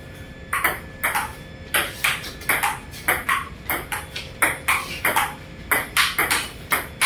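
Table tennis rally: the celluloid ping-pong ball clicking off the paddles and bouncing on the table in a quick, steady back-and-forth rhythm of about three hits a second, starting about half a second in.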